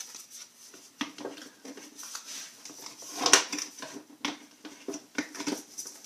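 Hard plastic parts of a steam vaporizer clicking and knocking as its red top cap is handled and pressed back down onto the white base, with one sharper click about three seconds in.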